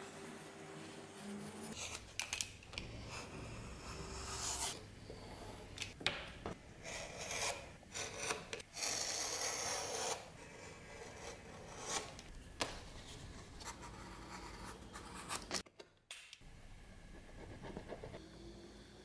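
A utility knife blade cutting and scraping through leather, in several short takes with abrupt changes between them. About halfway through, a longer, louder stretch of rasping, which fits the same knife being drawn along a file.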